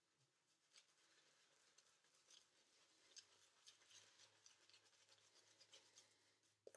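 Faint scratchy brushing of a Semogue 2020 silver tip badger shaving brush working lather on the face, with irregular strokes from the bristle tips.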